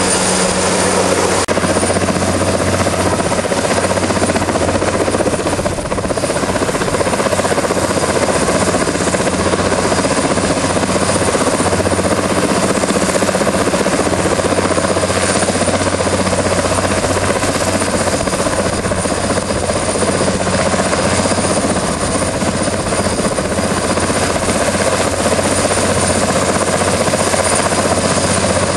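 Sikorsky S-64 AirCrane heavy-lift helicopter hovering close by: loud, steady rotor noise with a deep hum and a constant high turbine whine.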